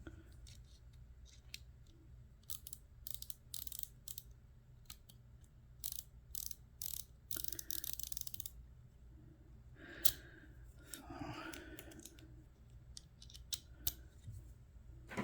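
Metal clicks and scrapes of a Victorinox Swisstool multitool being handled, its tools being folded and unfolded. A run of quick clicks comes in the first half, then scattered handling noise.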